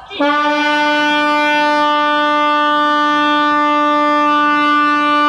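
A ship's horn sounding one long, loud, steady blast that comes in abruptly, with a brief dip in pitch at its onset.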